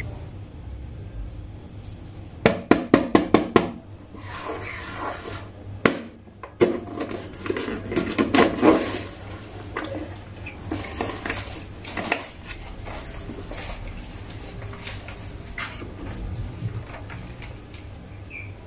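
Paper sheet being handled and broken through: a quick run of about eight sharp taps, then paper tearing and crinkling in irregular bursts as a hand pushes through it, followed by quieter rustling.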